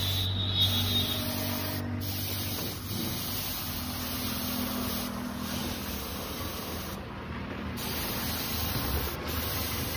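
Gravity-feed compressed-air paint spray gun hissing steadily as it sprays, over a steady low mechanical hum.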